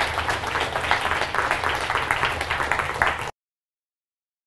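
Audience applauding: dense, steady clapping from many hands that cuts off suddenly about three seconds in.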